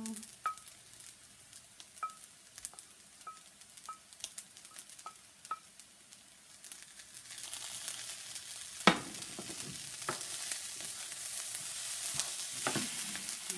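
Wooden spoon tapping a small metal pan with short ringing clicks as diced shrimp is knocked out into a skillet of fried rice. From about halfway, the rice sizzles and hisses in the hot skillet as it is stirred, with one sharp knock of the spoon against the pan.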